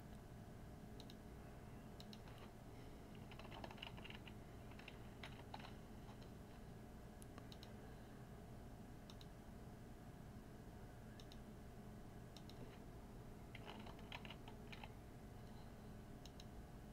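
Faint computer keyboard typing in short bursts, with single clicks in between, over a faint steady low hum.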